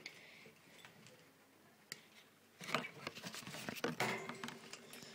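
Hard objects clicking and rattling as things are handled in a guinea pig cage: a single click about two seconds in, then a dense burst of clatter lasting about two seconds.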